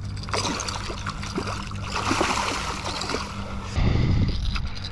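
Water trickling and splashing, with small clicks, as a freshly caught striped bass is handled in the shallows. A short low rumble about four seconds in.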